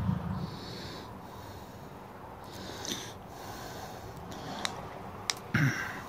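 Breathing close to the microphone, in soft repeated hisses, while a hand crimping and stripping tool is handled, with a few sharp clicks and a louder knock near the end.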